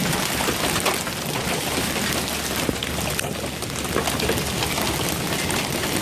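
Hail coming down onto a lawn of grass and dead leaves: a dense, steady patter of many small hits.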